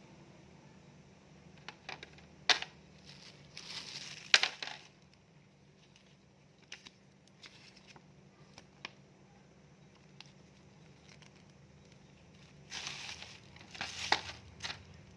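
Packaging being handled during an unboxing: plastic and cardboard crinkling in two spells, with a few sharp clicks and taps between them.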